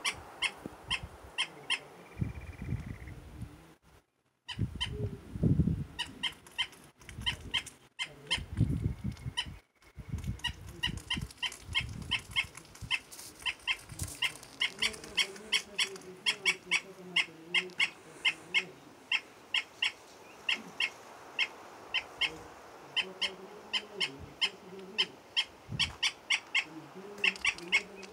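Andean flicker calling: a long run of short, sharp, evenly spaced notes, about two or three a second. Low rumbles of wind on the microphone come and go a few times in the first ten seconds.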